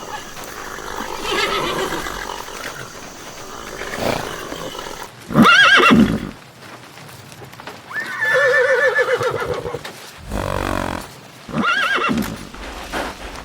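A horse neighing several times in a row. The loudest call comes about five and a half seconds in, and a long, wavering whinny follows about eight seconds in.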